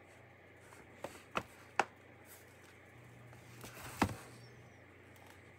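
Handling noise: a few light taps and clicks, the loudest a knock about four seconds in, over a faint steady low hum.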